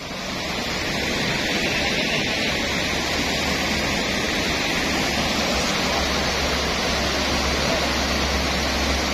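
Steady rush of turbulent, muddy floodwater pouring through a weir's sluice gates and churning into whitewater rapids.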